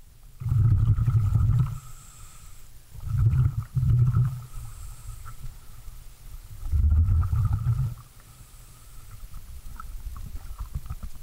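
Scuba diver's exhaled air bubbling out of the regulator underwater: three low rumbling bursts about three seconds apart, one per breath, with quieter pauses between.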